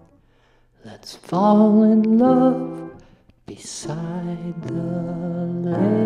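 A man singing without words in a song's closing passage: after a short pause, sliding phrases, then a held note near the end.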